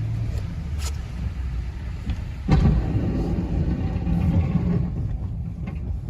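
Snowplow truck's engine running, heard from inside the cab. About two and a half seconds in there is a sudden thump, and the rumble grows louder for a couple of seconds before settling.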